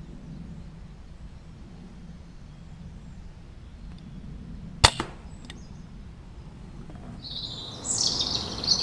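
A single shot from a Walther Rotex RM8 UC pre-charged air rifle: one sharp crack about halfway through, with a fainter tick just after it. Near the end, a bird gives harsh calls.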